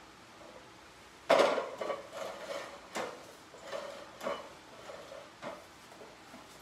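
An 18-inch push reel mower's metal frame, reel and wheels knocking and clattering against a tile floor as it is set down and shifted: one loud knock a little over a second in, then several lighter knocks.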